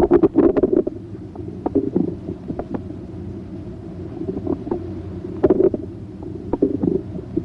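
Bowel sounds heard through a stethoscope diaphragm over the right lower quadrant of the abdomen: irregular gurgles and clicks in clusters over a steady low hum, thickest at the start and again about five and a half seconds in.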